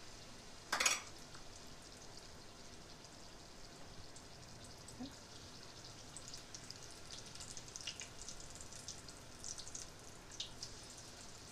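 Battered bread-and-potato bondas frying in hot oil, with a faint steady sizzle and scattered crackling. A single sharp knock comes about a second in.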